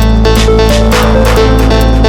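Live electronic dance music played on a drum machine, synthesizer and sampler: a steady deep bass and repeating synth notes under regular hi-hat-like ticks, with a noisy swell rising and falling about halfway through.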